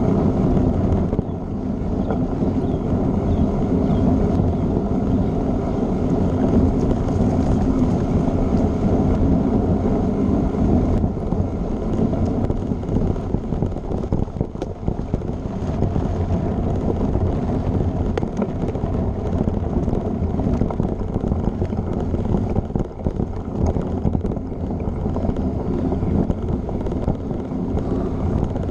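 Mountain bike ridden along a packed dirt trail: steady rumble of the tyres and the bike over the ground, with wind buffeting the microphone and scattered small rattles and knocks.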